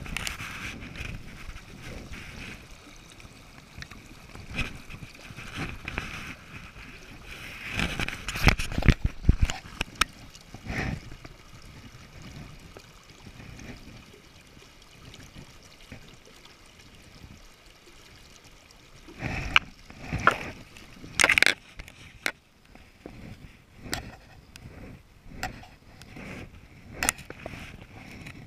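Shallow river current splashing and gurgling close by, broken by louder splashes and knocks from hands and a landed trout being handled in the water and released. The loudest bursts come about eight to nine seconds in and again around twenty seconds in, with scattered short ticks near the end.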